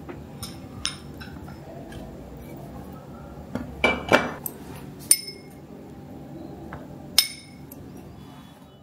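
Metal ice cream scoop clinking against glass dessert cups while jelly is served, with handling noise between. There are about six sharp, ringing clinks, the loudest two close together about four seconds in.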